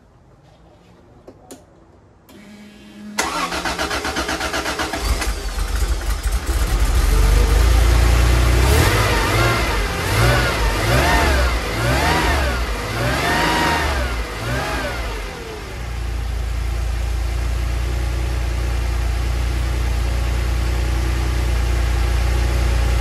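Freshly rebuilt 1984 Porsche 911 3.2-litre air-cooled flat-six cranks briefly and fires up about three seconds in on its first test run. The throttle is then blipped about six times, each rev rising and falling, before the engine settles into a steady idle.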